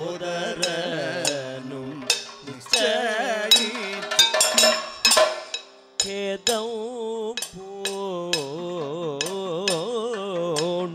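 Kathakali music: a singer holding ornamented, wavering notes over sharp percussion strikes.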